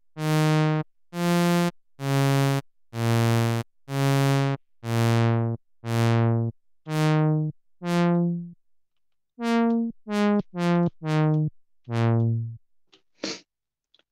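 Behringer Model D analog monosynth playing a run of separate bass notes, about two a second. Each note starts bright and quickly closes down as the filter envelope sweeps the cutoff, and the bright part gets shorter from note to note as the filter is adjusted. After a short pause, a quicker group of notes plays near the end.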